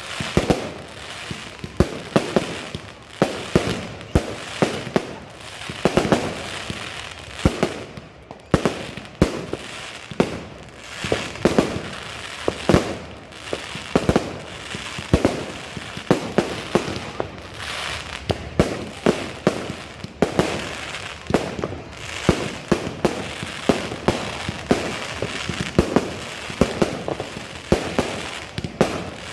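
Fireworks display going off: a rapid, continuous run of bangs and pops, several a second, each with a short echoing tail, over crackling.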